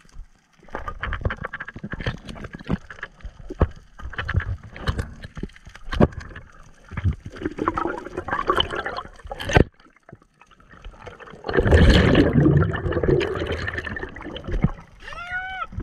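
Underwater sound through an action camera: scattered clicks and knocks with water swishing, then a loud rush of bubbling and gurgling for about three seconds as air bubbles stream past. Near the end comes a brief high squeak from the diver equalizing his ears by pinching his nose and blowing.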